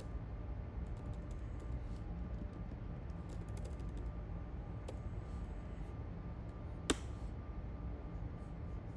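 Typing on a computer keyboard: scattered light key clicks, with one sharper, louder keystroke about seven seconds in, over a steady low hum.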